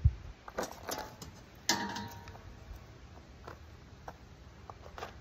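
Metal parts of a steel drum smoker being handled: a dull thump, a few clanks, then one ringing metal clang about a second and a half in, followed by a few light ticks.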